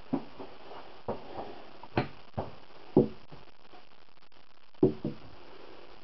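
Glass bottles being lifted and set back down on a hard tabletop: a series of separate sharp knocks and clunks, the loudest about three seconds in and again near five seconds.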